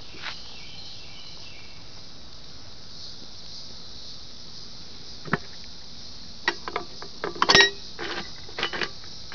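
Steady high hiss, then from about five seconds in a series of sharp clicks and knocks, the loudest a cluster near the end with a brief metallic ring: hard objects being handled.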